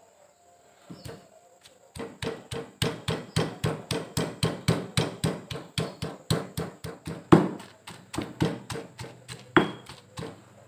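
Stone pestle pounding sliced onion, garlic and dried anchovies in a stone mortar. After a lone strike or two, it settles into a steady run of about four strikes a second until near the end.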